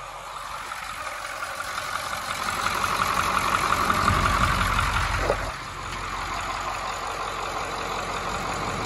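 International DV-550 V8 diesel engine of an S1700 water truck idling steadily. It grows louder over the first five seconds and dips slightly about five and a half seconds in.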